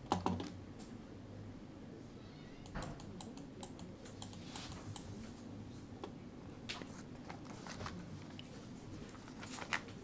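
Scattered, irregular clicks of a computer keyboard and mouse, some in short clusters, over a faint steady low room hum.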